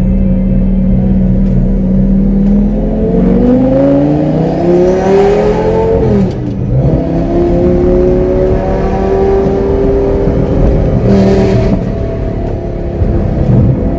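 Lamborghini Gallardo V10 through a custom straight-piped exhaust with an X-pipe and no mufflers, under way. The engine note holds steady, climbs as the car accelerates from about three seconds in, and drops sharply around six seconds. It then holds a steadier, lower note.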